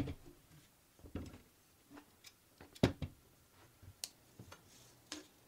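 Handling noises from an electric planer being set into its aluminium jig: scattered light clicks and knocks, the loudest a sharp knock a little under three seconds in. The planer's motor is not running.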